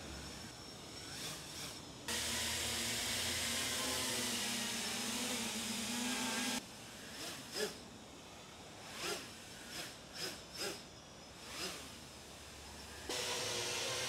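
7-inch FPV quadcopter hovering on 3D-printed OCTOblade propeller hubs fitted with DalProp Fold 2 F7 folding blades, eight blades and then six. It makes a steady whirring hiss with a hum, and its level jumps abruptly a few times. In the six-blade stretch the sound swells and fades several times, and a louder whir starts about a second before the end.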